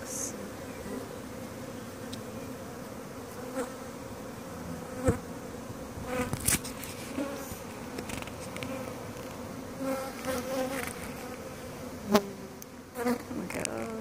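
A mass of honey bees buzzing in a steady hum, with single bees passing close now and then for brief louder buzzes, and a sharp tap about twelve seconds in.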